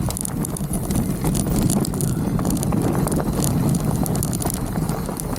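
Mountain bike riding over a dirt trail: a steady rumble of tyres on the ground, with scattered small clicks and knocks from the bike rattling over rough ground, and wind rumble on the microphone.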